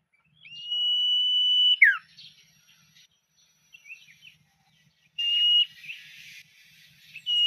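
Common iora (cipoh) whistling: a long level whistle that ends in a sharp downward slur, then scattered short chirps, then two shorter level whistles about five seconds in and near the end.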